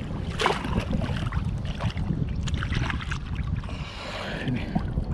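Wind rumbling on the microphone, with water sloshing and splashing as a person wades in shallow water and handles a fish at the surface.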